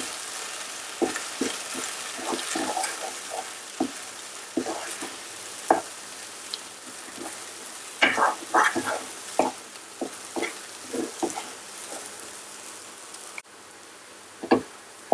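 Urad dal paste frying in hot oil in a pan, with a steady sizzle and a spatula scraping and knocking against the pan as it is stirred continuously. The sizzle drops off suddenly near the end, leaving one more knock.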